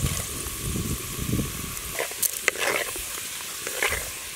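Fenugreek seeds sizzling in hot sesame oil in a clay pot, stirred with a coconut-shell ladle. There is a steady hiss, with a few sharp crackles about two seconds in.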